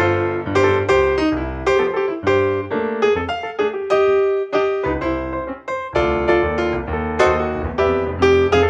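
Background piano music: a steady stream of quickly struck notes.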